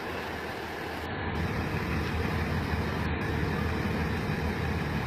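Large trucks driving through a flooded road: a steady, low rumble of engines and water that grows a little louder about a second in.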